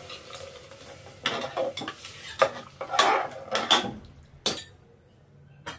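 Metal slotted spoon stirring a watery dal mixture in a pressure cooker, clanking and scraping against the pot several times, then one last knock near the end.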